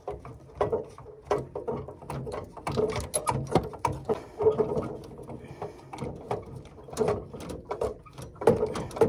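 Irregular clicking, knocking and rattling of plastic and metal fittings being handled and worked loose inside an open Worcester Bosch Greenstar combi boiler.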